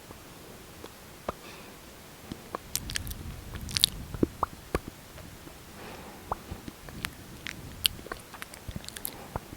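Close-miked lip sounds from putting on lipstick: irregular sticky clicks and small wet smacks of the lips, more frequent after the first couple of seconds.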